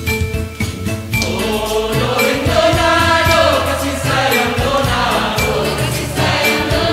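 Mixed choir singing in harmony over an instrumental accompaniment with a steady beat; the voices come in about a second in.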